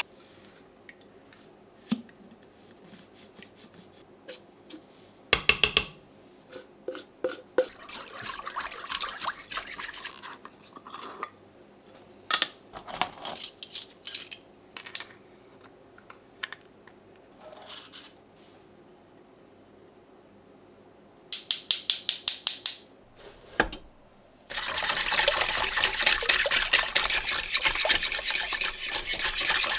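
Dishes being washed by hand at a kitchen sink: scattered clinks of dishes and utensils with brief scrubbing, a quick rattling run a little past twenty seconds in, then the faucet running steadily from about twenty-four seconds in.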